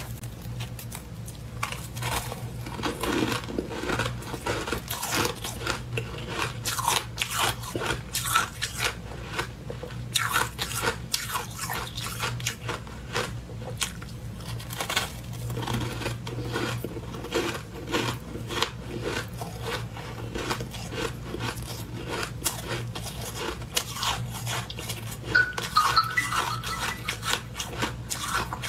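Freezer frost being bitten and chewed: a steady run of irregular crunches and crackles, one after another.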